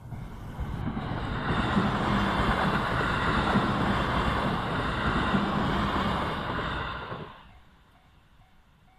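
JR East E129 series electric train passing over a level crossing: wheels on rail rumbling and rattling loudly for about seven seconds, then falling away fast as the last car clears. The crossing's warning bell keeps dinging in a steady repeating rhythm, plain again once the train has gone.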